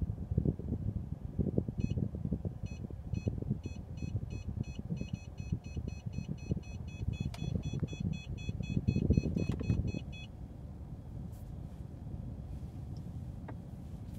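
Parking sensor warning beeps, repeating faster and faster as the reversing car nears the obstacle until they almost run together, then stopping about ten seconds in. A low rumble of the car runs under them.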